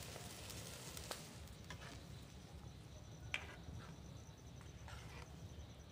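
Metal ladle stirring a thin coconut-water curry in a metal wok, with a few light clinks of the ladle against the pan, the loudest a little past halfway, over a faint low steady rumble.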